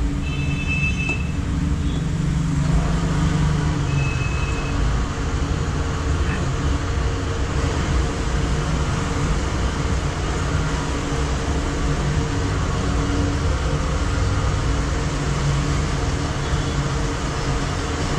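Steady road traffic noise, with vehicle engines running and a few brief high tones near the start and about four seconds in.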